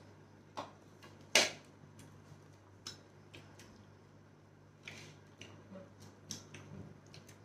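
Close-up eating sounds of people eating rice and vegetables with their hands: scattered short mouth clicks and smacks of chewing, with one louder crunchy click about a second and a half in. A faint steady low hum runs underneath.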